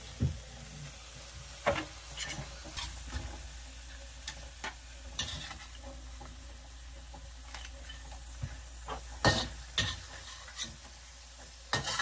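Blue crabs sizzling faintly in a hot wok, with a utensil knocking and scraping against the wok and the crab shells at irregular moments. The loudest knocks come about nine to ten seconds in.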